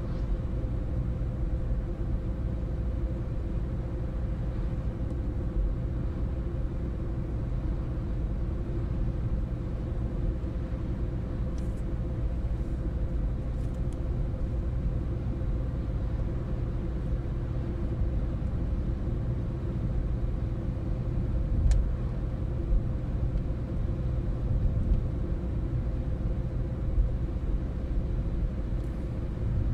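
Car driving at road speed, heard from inside the cabin: a steady rumble of engine and tyres on the road with a constant hum, and a few faint ticks.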